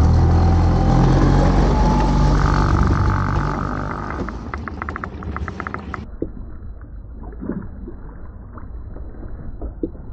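A small boat's engine running underway, with wind and water rushing past, which dies away over about four seconds. After a cut, only quiet water noise remains, with a few scattered light clicks.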